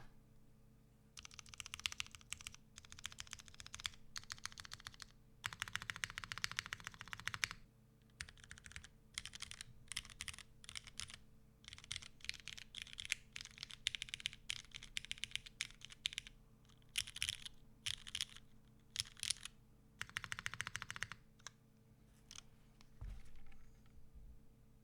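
Mechanical keyboard with lubed retooled Cherry MX Black linear switches being typed on in quick runs of keystrokes separated by short pauses. The typing stops a few seconds before the end, and a single low thump follows.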